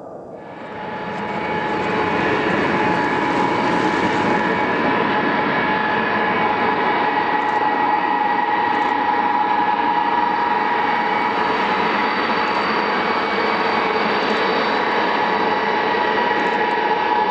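Ilyushin Il-76TD's four Soloviev D-30KP turbofans running as the freighter taxis, loud and steady: a whine of several high tones over a deep rush of jet noise. It sets in about a second in, after a quieter start.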